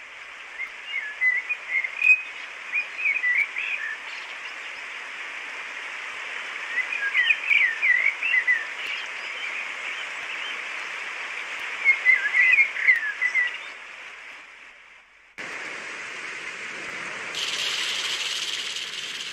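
Bird ambience: a steady hiss with small birds chirping in three short bouts. About fifteen seconds in it cuts to the steady hiss of rain, which grows brighter a couple of seconds later.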